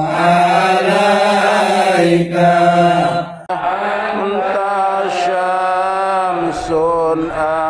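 Voices chanting Arabic salawat, devotional praise of the Prophet Muhammad, in slow, drawn-out melodic lines, with a brief break about three and a half seconds in.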